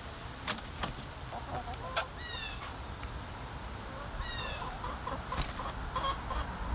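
Hens clucking softly in short notes, with a few sharp clicks and scratches as they shift about on plastic milk crates and straw. Brief high calls that fall in pitch come twice, about two and four seconds in.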